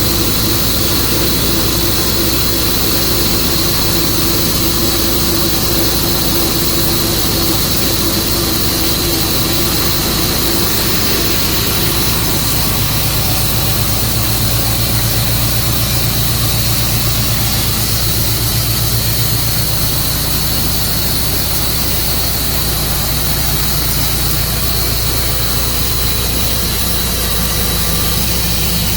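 Tru-Cut band sawmill's engine running steadily, with a steady high whine over it. The low engine tone shifts about twelve seconds in.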